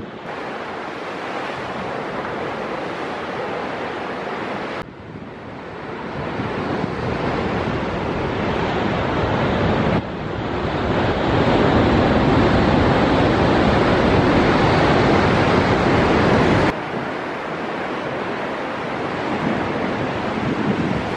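Heavy surf crashing and churning against limestone sea cliffs, a steady loud roar of breaking waves with wind buffeting the microphone. The loudness jumps abruptly three times, loudest through the middle.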